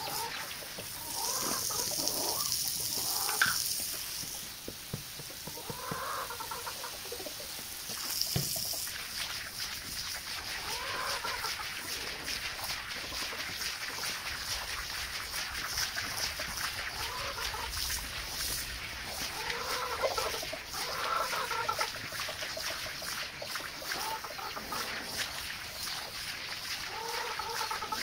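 Chickens clucking in short calls again and again, over the steady scratching of a stiff brush scrubbing a wet, soapy rug, with brief bursts of spraying water near the start and about eight seconds in.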